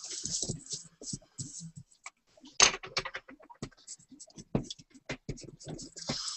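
Pencil scratching across drawing paper in quick shading strokes, then the sheet being handled and shifted on the desk, with scattered taps and a sharper knock about two and a half seconds in.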